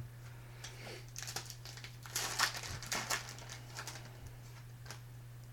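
Foil card-pack wrapper being torn open and crinkled by hand, a cluster of crackles strongest in the first half, over a steady electrical hum.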